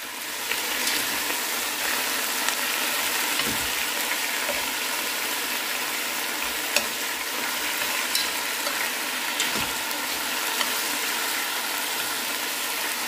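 Marinated chicken pieces sizzling steadily as they are stir-fried in hot oil and caramelized sugar in a stone-coated pan. Chopsticks turn them, and there are a few sharp clicks, the loudest about midway.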